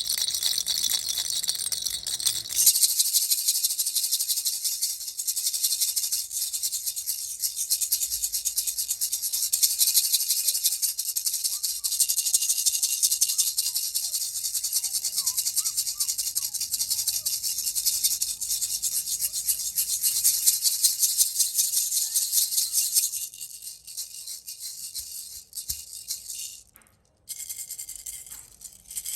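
Baby's toy rattle being shaken continuously, a dense, high, fast rattling of small beads. It grows louder a few seconds in and turns softer and more broken near the end.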